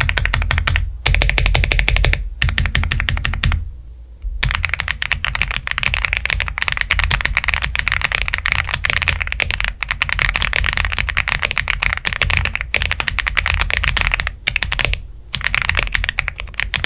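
Fast typing on an Aula F75 Pro mechanical keyboard with pre-lubed Leobog Reaper linear switches: a rapid run of key clacks broken by a few short pauses, with music underneath.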